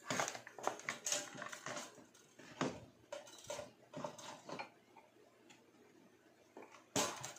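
Scattered clicks, taps and light metallic clatter from the opened toaster's metal frame and plastic housing being handled. The sharpest knock comes near the end.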